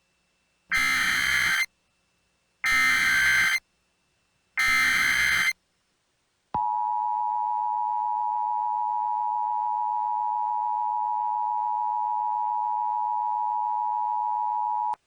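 Emergency Alert System tones: three short bursts of screechy digital header data, about a second each, followed by the EAS attention signal, a steady two-pitch electronic tone held for about eight seconds that cuts off sharply.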